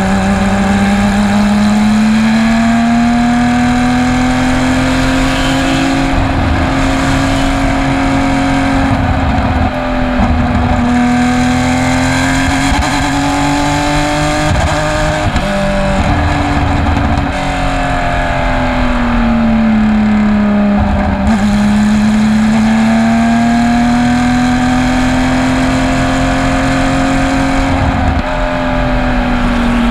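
Porsche race car engine heard onboard at speed, its pitch slowly rising and falling several times as the revs change. The engine has a bad misfire.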